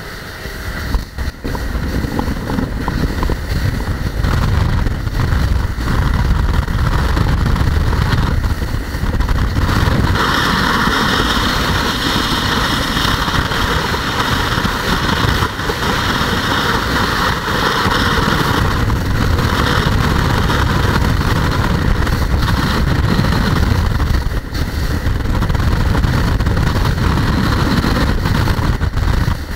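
Grady-White cabin boat running underway through choppy water: a steady engine drone mixed with wind and water rushing past the hull. About a third of the way in it turns louder and hissier for several seconds, then settles back.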